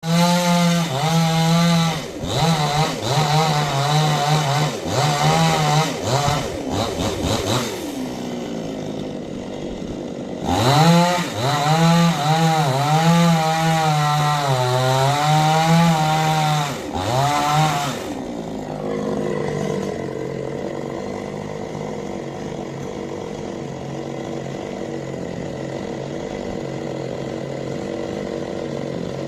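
Chainsaw engine at high revs, its pitch repeatedly dipping and rising again for about eighteen seconds, with a brief quieter spell partway through, then settling into steady, lower-pitched running.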